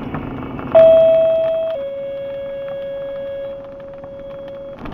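Two-tone sequential paging alert over a radio scanner: a steady tone lasting about a second, then a slightly lower tone held about three seconds, starting and stopping abruptly. This is the kind of tone pair used to alert fire and emergency crews to a dispatch. Under it is the steady rumble of the moving car.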